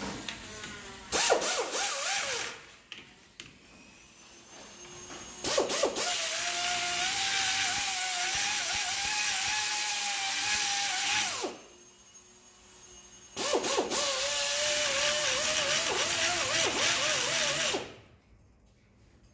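Hand-held pneumatic air tool running on shop air in three bursts: a short one about a second in, a long one of about six seconds, and another of about four and a half seconds near the end. Each burst is a steady, slightly wavering whine over a loud high air hiss. It is being used to knock loose a stuck steering part where working by hand failed.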